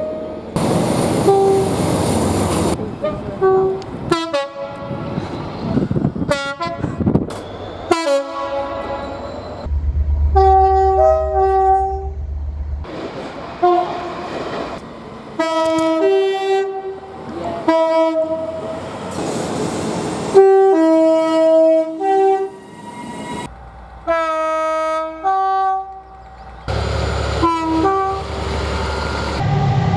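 British train horns in a rapid series of short clips, each sounding two-tone calls that step between a high and a low note. Bursts of passing-train noise fall between them.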